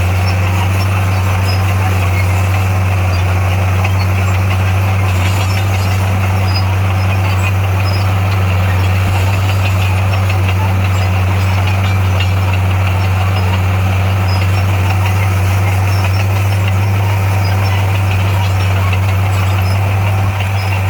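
Heavy earthmoving machine's engine running at a steady speed, a deep constant drone that does not rise or fall.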